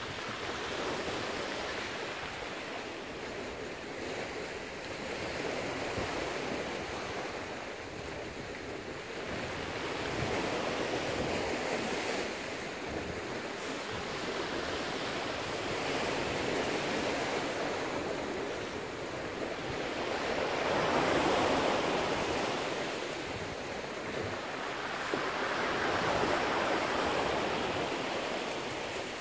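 Rough sea surging against the rocks below, a steady rushing wash that swells and ebbs with each wave every four to five seconds.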